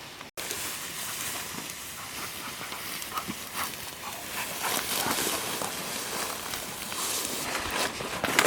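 Dry grass and crop stalks rustling and crackling as hunters wade through cover on foot, growing busier and louder toward the end.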